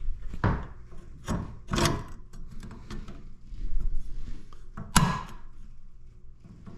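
Metal bracket of a dual monitor wall mount knocking and scraping against the mount's arm as it is fitted by hand: a few separate clunks and rubs, the sharpest about five seconds in.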